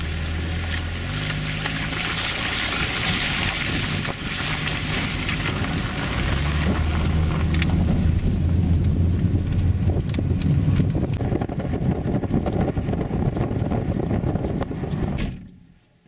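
Car engine running with road and wind noise heard from inside a moving car; the engine note shifts a few times, with occasional sharp clicks. The sound cuts off near the end.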